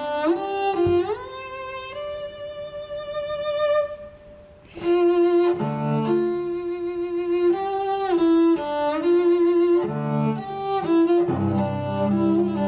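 A bowed string instrument playing a slow melody with vibrato and slides between notes, with lower notes sounding underneath at times. It breaks off briefly about four seconds in, then resumes.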